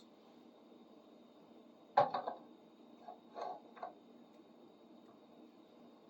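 Metal tool clinks: one sharp clank about two seconds in, then a few lighter clinks over the next two seconds, as a wrench is worked on the threaded bolt of a gear puller.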